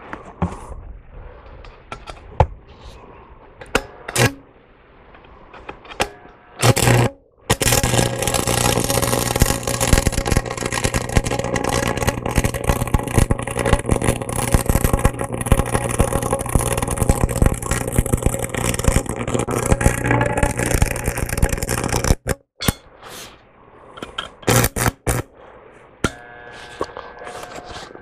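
Stick welding with a buzz-box arc welder: a brief arc strike about seven seconds in, then a steady crackling, sizzling arc with a low hum under it for about fifteen seconds until it stops abruptly. Scattered clicks and taps before the weld and after it.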